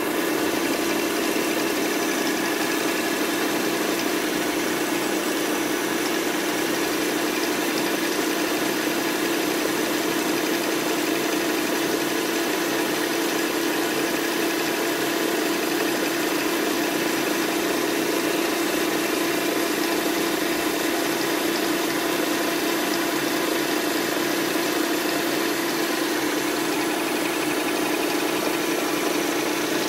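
Small 180x300 benchtop metal lathe running steadily, spindle turning a long shaft between centres while the tool cuts a long taper; a constant mid-pitched hum from the motor and drive with a hiss over it.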